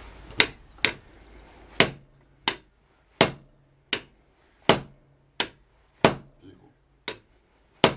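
Hand hammer striking red-hot iron on a small anvil in hand forging, about eleven blows in an uneven rhythm, a little under one a second, each with a short metallic ring.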